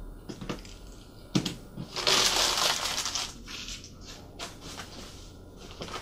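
A sheet of newspaper wrapping being gathered up and crumpled: a loud paper rustle of about a second, starting about two seconds in, with fainter rustles after. Just before it, a single light knock.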